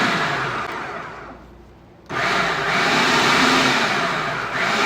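Edison food processor motor run in short pulses to combine the tart dough ingredients without overmixing: a burst that winds down, a brief pause, then a longer run starting about two seconds in.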